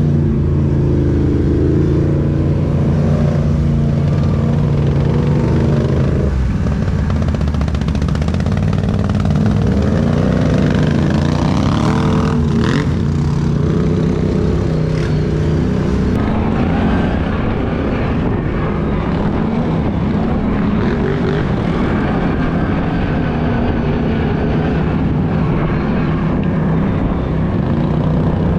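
ATV engine running under way on a muddy trail, its pitch rising and falling with the throttle.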